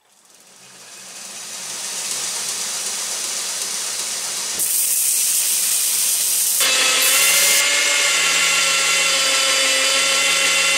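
Belt grinder (backstand) running up to speed, then a drill bit being resharpened against the abrasive belt: a steady grinding hiss that grows louder about four and a half seconds in, with a steady high whine joining it about two seconds later.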